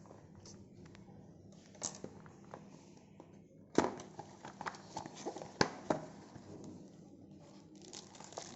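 Handling noises from a phone's retail box and packaging: a click about two seconds in, then a run of sharp clicks and knocks between about four and six seconds, over faint room hum.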